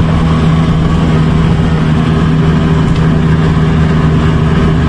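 The engine of a road vehicle running steadily, heard from inside the cab, with a constant-pitch drone and road noise while it drives.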